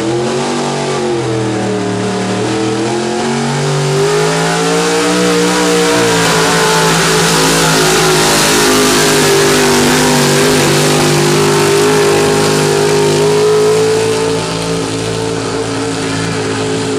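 Pulling pickup truck's engine at full throttle, dragging a weight sled. The revs dip and climb over the first few seconds, then hold high and steady under a rushing noise, and ease off a little near the end.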